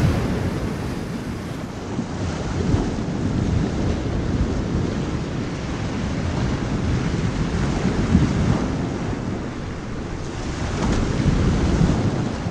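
Ocean surf: a steady rush of waves with a low rumble, swelling and easing, with a fresh swell near the end.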